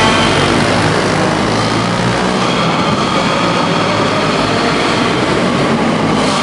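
Several racing go-kart engines running hard together, a loud, steady drone as the karts circuit a dirt oval.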